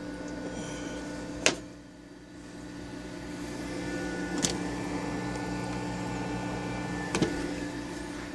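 Steady electric hum of a 29-gallon Biocube aquarium's running pumps, with three sharp clicks about three seconds apart.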